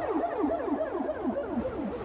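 Police siren in a fast yelp, about six rising-and-falling sweeps a second, its pitch sinking and its level fading away.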